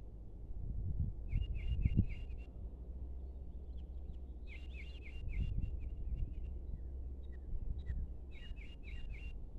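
A songbird singing three phrases of quick repeated slurred notes, about a second or two each, with a pause of a few seconds between them. Under the song is a low rumble that swells briefly a second or two in and again near the middle.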